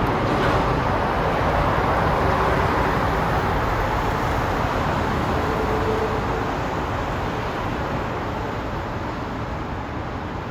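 Heavy road vehicle running on the road, a steady rumble of engine and tyres that slowly fades as it moves away.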